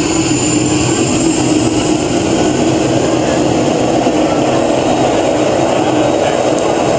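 Howmet TX race car's gas turbine engine running, a loud steady rushing roar with a high thin whine above it.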